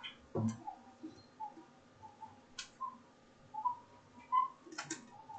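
A few scattered sharp clicks of computer keyboard keys being typed, with faint short chirps between them.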